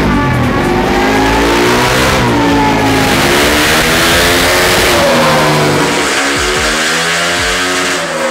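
Bored-up Honda CRF150L single-cylinder four-stroke engine, through an aftermarket Norifumi exhaust, revving hard on a dynamometer during ECU tuning. The revs climb and drop back about three times, the last climb near the end.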